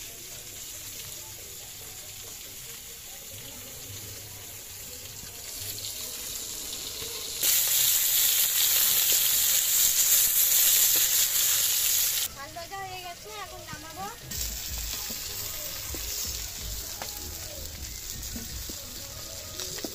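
Pieces of mrigal fish frying in hot oil in an iron kadai. A loud, steady sizzle starts suddenly about seven seconds in and cuts off about five seconds later. Quieter sizzling and a spatula turning the fish follow.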